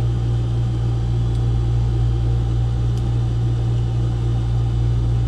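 Steady low machine hum, with two faint light ticks about a second and a half and three seconds in as a crimped pin is worked into a plastic wiring connector.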